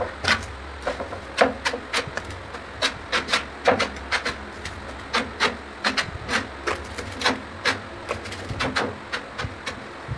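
Tile work on a large ceramic tile: cement being spread on its back, with irregular sharp taps, knocks and scrapes, about two or three a second.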